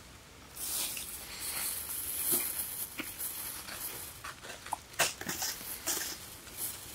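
A wok over a wood fire hissing and sizzling in uneven surges, with sharp crackles and pops from the burning wood.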